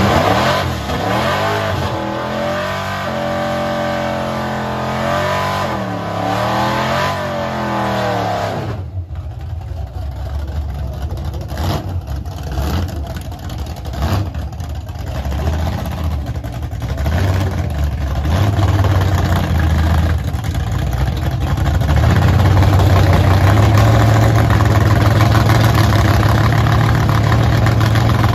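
Engine of an HJ Holden one-tonner drag car revving up and down repeatedly for about eight seconds, as in a burnout. It then drops to uneven lower running with short blips, and settles into a steady low drone for the last few seconds as the car rolls up to the start line.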